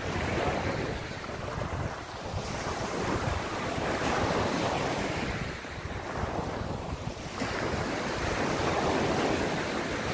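Small sea waves breaking and washing up a sandy beach, swelling and easing in about three surges, with wind buffeting the microphone.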